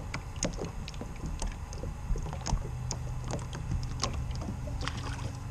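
Steady low hum with many light, irregular clicks and knocks from handling gear aboard a fishing boat.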